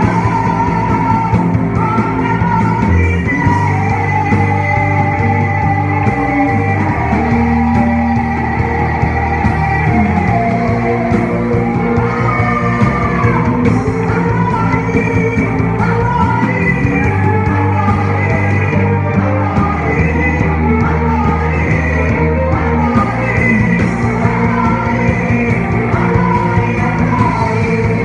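Christian praise band performing a song with singing, a steady bass line holding long notes beneath the vocal melody.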